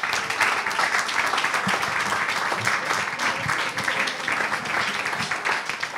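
A small studio audience applauding, many hands clapping steadily.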